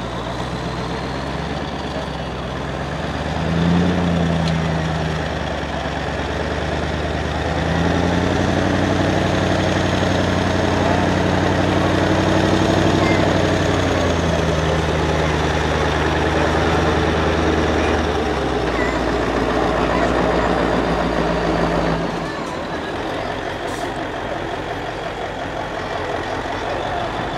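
Diesel engine of a Mercedes-Benz 8x8 four-axle trial truck working under load as it crawls over dirt mounds. The revs lift briefly about four seconds in, are held higher and louder from about eight to eighteen seconds, and then ease back to a lower, quieter note. A faint high whine rises and falls with the revs.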